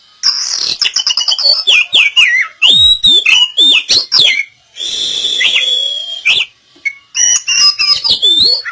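Oriental magpie-robin singing loudly: a fast run of varied whistled phrases, slurred glides and chattering notes, broken by short gaps and one longer pause about two-thirds of the way through. It is a lure song of the kind played to prompt a silent magpie-robin to start singing.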